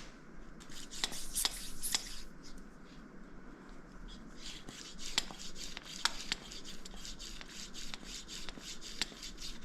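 A hand shock pump being worked to pump air into a Fox 40 fork's air spring: repeated rubbing pump strokes with many small clicks.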